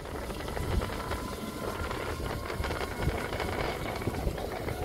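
A three-wheeled auto-rickshaw in motion, heard from inside: a steady rumble with tyre noise on a wet road.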